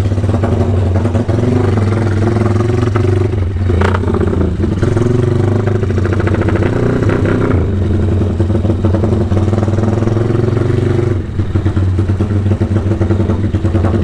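Motorcycle fitted with an aftermarket racing exhaust, its engine running under throttle while riding through traffic. The note rises and falls with the throttle and eases off about eleven seconds in, with a single clack about four seconds in.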